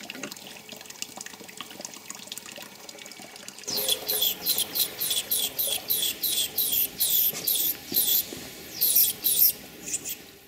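Live steam injector on a 5-inch gauge model locomotive, feeding water into the boiler. There is a steady faint hiss with small crackles, then from about four seconds in a run of high squeaky chirps, two or three a second, that stops near the end.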